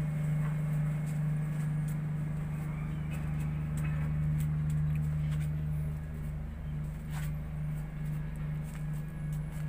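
Steady low drone of a ship's machinery, heard on deck. About six seconds in the drone begins to throb roughly twice a second.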